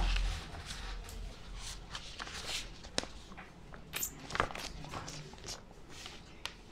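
Paper handling: soft rustling with scattered light taps and clicks at irregular moments, a couple of them sharper about three and four seconds in.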